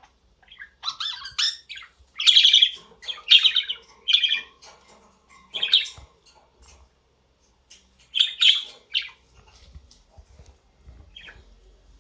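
Pet budgerigar chirping and squawking in short scratchy bursts, a string of chirps in clusters with brief pauses.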